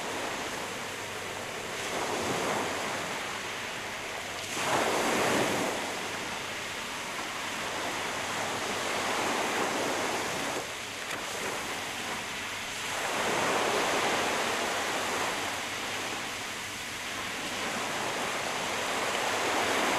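Sea waves washing in, a rushing noise that swells and falls back every four or five seconds.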